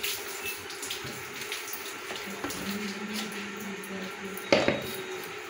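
A steel mixer-grinder jar clinks once against a steel mug about four and a half seconds in as ground mustard seed is tipped out. A steady hiss runs underneath.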